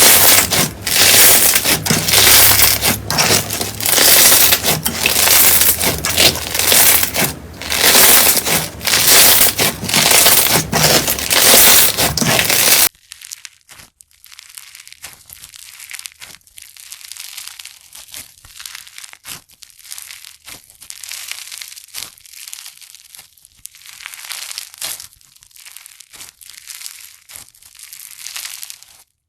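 Slime being squeezed and pressed, a dense crackling and crunching that comes in repeated surges. About halfway through it cuts abruptly to a quieter, finer crackle.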